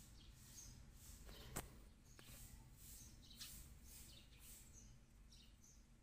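Near silence with faint high-pitched chirps recurring about twice a second, and one sharp click about a second and a half in.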